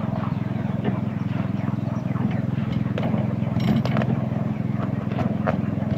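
Petrol engine of a petrol-hydraulic miniature railway locomotive running steadily while under way, with scattered light clicks and knocks from the wheels on the 7¼-inch gauge track.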